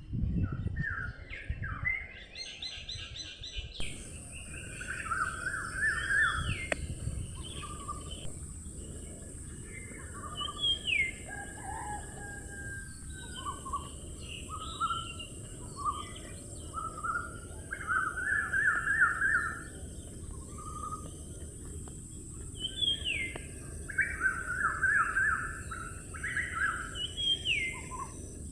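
Several songbirds chirping and singing, with short repeated trills and calls overlapping. A steady high-pitched hiss sets in about four seconds in, over a low background rumble.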